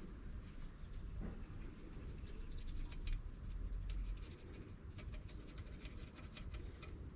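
Irregular scraping and scratching strokes on a metal gasket surface, as old gasket residue is cleaned off before a new gasket goes on. The strokes come thickest in the middle.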